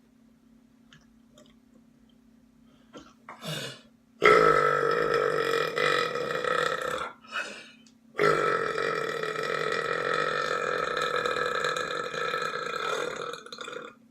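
A person belching loudly twice on purpose. A short gulp of air about three seconds in is followed by a burp of about three seconds, then another quick gulp and a long burp of over five seconds, both held on a fairly steady pitch.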